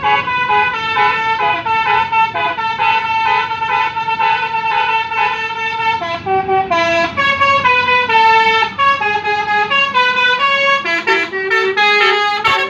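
Bus 'telolet' horn: a multi-tone musical air horn on an Indonesian bus playing a loud tune of short stepped notes. The notes repeat quickly at first, and about halfway through the tune moves through different pitches.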